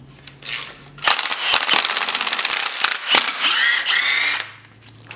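Cordless impact wrench hammering rapidly for about two seconds while backing out the exhaust manifold bolts on an LQ-series 6.0 V8 cylinder head. A sharp knock follows, then about a second of rising, whining spin before it stops.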